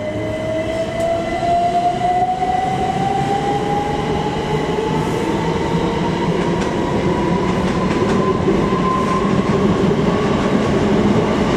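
c2c Class 357 Electrostar electric multiple unit pulling away, its traction motor whine rising steadily in pitch as it accelerates, over a low rumble from the train.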